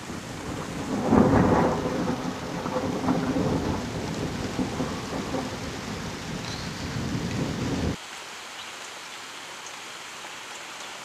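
Thunder rumbling over steady rain. The rumble swells to its loudest about a second in, rolls on for several seconds, then stops abruptly about eight seconds in, leaving only the rain hiss.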